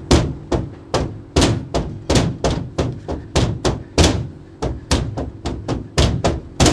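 A fist punching the front of a Coca-Cola vending machine: a rapid, uneven series of loud thuds, about three a second.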